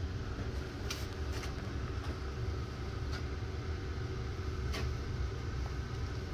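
Steady low mechanical hum, with four short scrapes as joint compound is worked over a ceiling drywall patch, at about one second, one and a half seconds, three seconds and nearly five seconds in.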